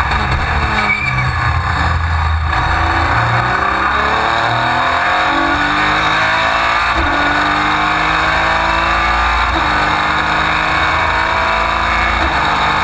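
Racing car engine heard from inside the cockpit: its pitch falls as the car slows for a corner, then climbs as it accelerates out, dropping sharply at two upshifts about seven and nine and a half seconds in.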